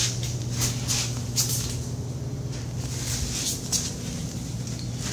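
Soft, scattered scuffs and clicks of footsteps and camera handling, over a steady low hum.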